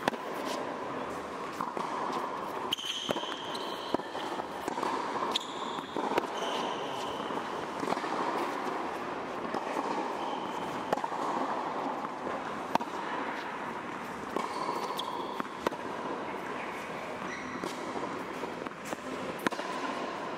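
Tennis rally: sharp pops of the ball struck by an old wooden racquet strung with natural gut and by the partner's racquet, along with the ball bouncing on the hard court, one every second or two. Short high shoe squeaks on the court come between the hits.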